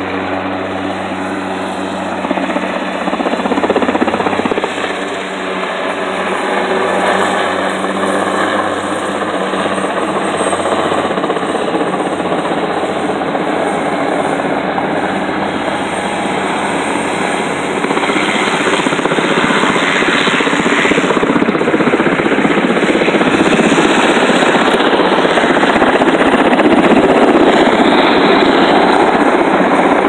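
Helicopter rotor and engine noise from a lifting helicopter carrying an air-conditioning unit slung on a long line. It gets louder about two-thirds of the way in as the helicopter comes close overhead.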